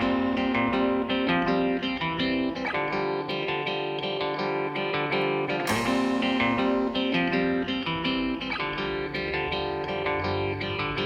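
Background music led by plucked guitar, with a steady run of notes.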